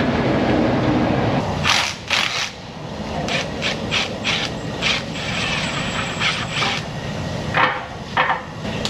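A steady rushing noise for the first second and a half, then short, sharp clicks and clatters in irregular bunches, typical of hand tools and a ratchet working bolts under a truck.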